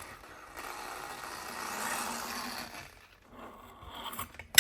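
Scraping noise for about two seconds, metal work at the carburetor body, then quieter, with a sharp metallic clink right at the end.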